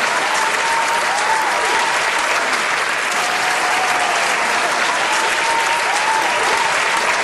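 Crowd applause: dense, steady clapping, with now and then a thin pitched whoop sliding up and down above it.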